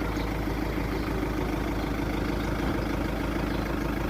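Heavy diesel engine of earthmoving machinery running steadily at low revs, with a fast, even chugging pulse.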